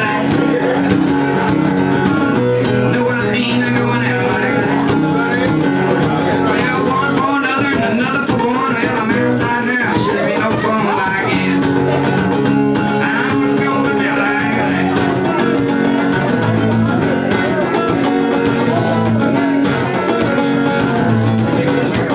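Acoustic guitar strummed steadily in a live solo performance, with a man singing over it into a microphone.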